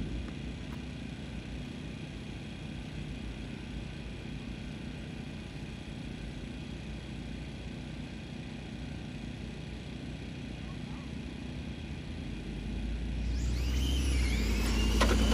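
Steady low background rumble. Then, about 13 seconds in, a louder rush with several high whines sliding in pitch: radio-controlled drag cars' electric motors making a pass down the track.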